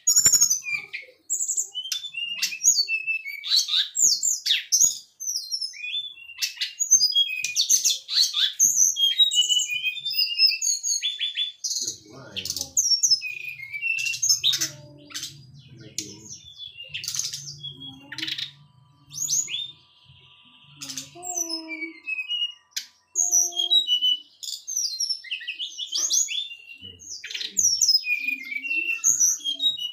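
Caged brown-chested jungle flycatcher (SRDC) singing busily: a fast, varied run of high chirps, whistles and trills with short pauses. It is delivering the mimicked song phrases that bird keepers call its 'materi'.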